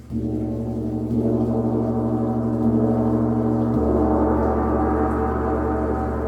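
Gong struck with a mallet near the start and again about a second in, building into a loud, sustained wash of ringing overtones.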